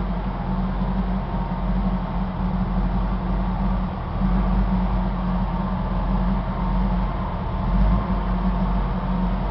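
Ford Mustang Cobra V8 idling steadily through a Roush side exhaust with an X-pipe, a deep, even rumble at constant pitch.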